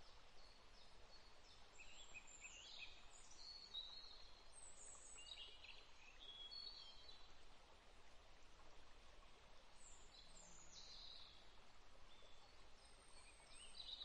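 Near silence with faint birdsong: scattered short high chirps and whistles over a low hiss.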